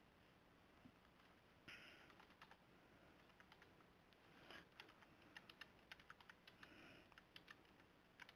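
Faint typing on a computer keyboard: an uneven run of quick key clicks starting about two seconds in, as a ping command is entered.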